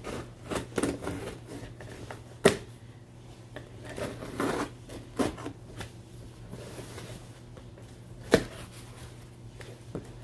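A package being opened by hand: irregular rustling and scraping of the packaging, with two sharp clicks or knocks, one about two and a half seconds in and one about eight seconds in.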